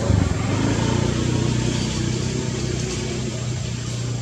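A motor engine running steadily, fading slowly.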